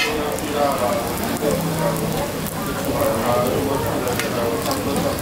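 Food sizzling in hot oil on a pan, a steady hiss, with people talking in the background.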